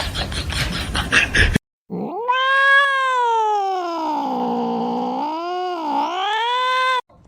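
Domestic cat yowling in one long, drawn-out call of about five seconds: it sinks in pitch through the middle, rises again, and wavers sharply near the end before it stops. It comes after a short burst of noisy clatter that cuts off.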